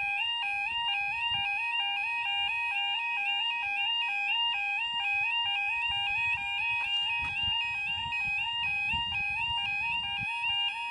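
Level crossing warning alarm (the UK two-tone 'yodel') sounding without a break, warbling between two pitches about two to three times a second. It signals that the barriers are down and a train is approaching.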